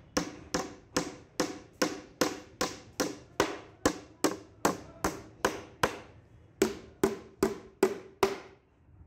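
Hammer driving nails into the wooden top of a small coffee table: about twenty steady blows, roughly two and a half a second, with a short pause about six seconds in. The blows stop near the end.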